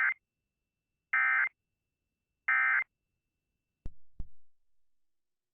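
Emergency Alert System end-of-message data tones: three identical short bursts of warbling digital tone, about a second and a quarter apart, that close the alert. Two sharp clicks follow just before the four-second mark.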